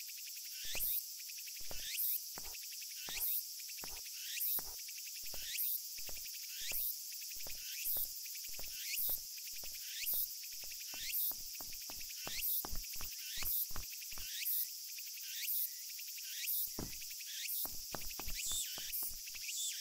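Cicadas singing: a steady high buzz with a rising call repeated about once a second.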